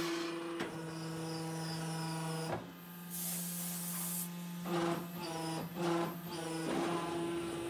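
Hydraulic power unit of a soil interlocking brick machine running with a steady hum, with a few knocks, a hiss about three seconds in, and the hum swelling louder several times in the second half as the press works.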